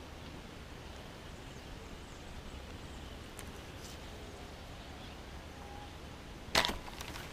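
Quiet outdoor background, then about six and a half seconds in a single sharp snap as a latex-banded fishing slingshot is released, firing an arrow down at the water.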